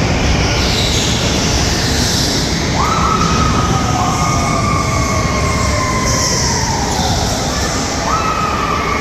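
Go-karts running on an indoor track: a motor whine jumps up sharply about three seconds in and slides slowly down as a kart comes through the bend, and a second whine starts near the end as a pack of karts arrives, over a constant loud rumble.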